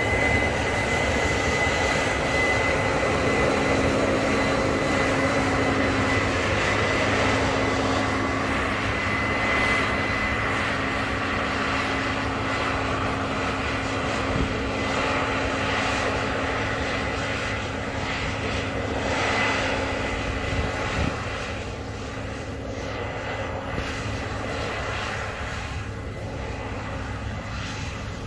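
Case IH combine harvester running steadily while picking up barley, its engine and threshing machinery droning with a faint steady whine. It gets somewhat quieter in the second half.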